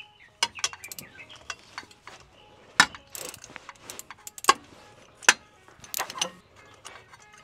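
Ratchet wrench clicking and knocking as the filler plug of a BMW E90 M3's rear limited-slip differential is backed out by hand, in irregular sharp clicks with a few louder knocks.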